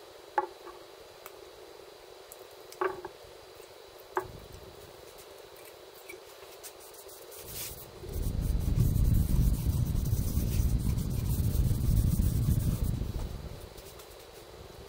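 Gloved hand rubbing a cloth over the wooden body of a guitar to work in dye, with a few light clicks in the first few seconds. About halfway through comes a loud, rough, low rubbing rumble that lasts about five seconds and fades near the end.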